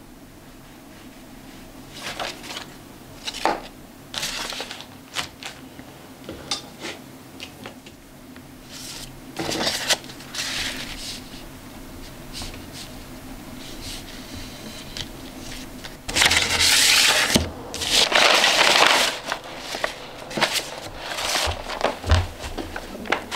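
Intermittent rustling, crinkling and scraping of things being handled, with scattered light clicks and a louder stretch of rustling about two-thirds of the way in.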